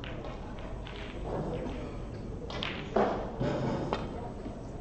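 A single sharp knock about three seconds in, followed by a couple of lighter knocks, over the low murmur of a large hall.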